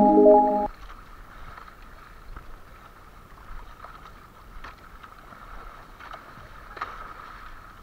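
A short musical chord from the logo intro ends about half a second in. Then water washing around a bamboo-outrigger fishing boat at sea, with wind and a faint steady high hum, and a few light knocks.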